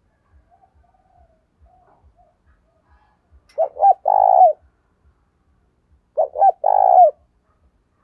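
Spotted dove (chim cu gáy) decoy bird cooing. After some soft low cooing, it gives two loud calls about two and a half seconds apart, each two short notes followed by a longer, burry note.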